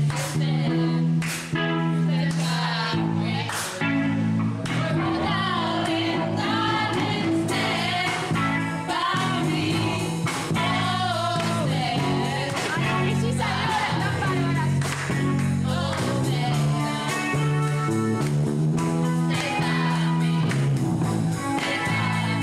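Several girls singing a song together into a microphone, accompanied by guitar, with sustained low bass notes under the voices.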